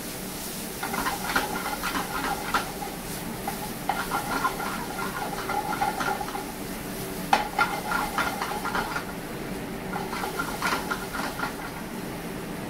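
Stainless steel sauté pan shaken and worked on a gas burner, the food rattling and sizzling in it, in four bouts of a second or two each. A steady hiss and hum runs underneath.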